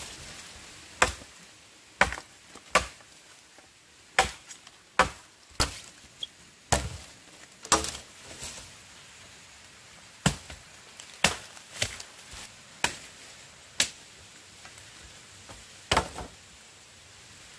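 A blade chopping wood: a dozen or more sharp, separate chops, irregularly about one a second, with a longer pause before a last chop near the end.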